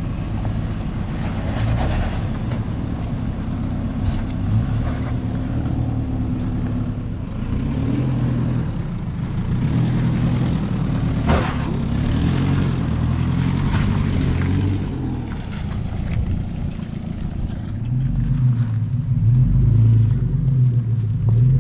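Four-wheel-drive engines working at low revs as the vehicles crawl over rock, the pitch rising and falling with the throttle. A single sharp knock comes about halfway through. The loudest engine is near the end, as an FJ Cruiser's 4.0-litre V6 climbs close by.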